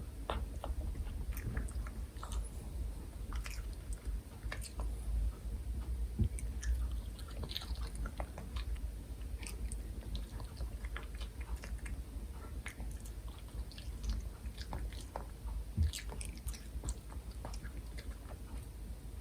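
A Pomeranian chewing and biting food, with irregular small clicks and crunches from its teeth and mouth.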